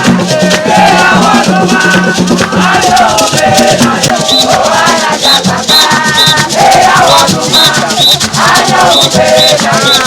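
Jama music: a group singing a call-and-response style song over steadily rattling shakers. From about four seconds in, short high pips repeat in small groups.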